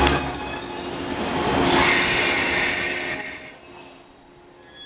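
JR West 117 series train (WEST EXPRESS Ginga) slowly pulling into a station platform under braking, with a high-pitched steady squeal from its wheels and brakes. The running rumble fades out about three seconds in, leaving the squeal as the loudest sound.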